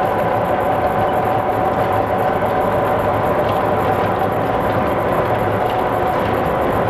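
O scale model freight train rolling by, a steady running noise of metal wheels on three-rail track with a constant motor hum and whine.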